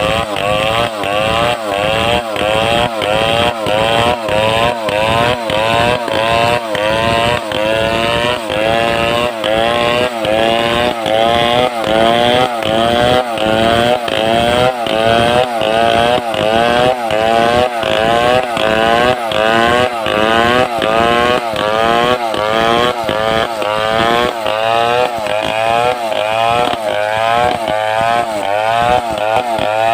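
Home-assembled Stihl 070-type two-stroke chainsaw cutting wood under load. Its engine pitch repeatedly climbs and drops, about one and a half times a second.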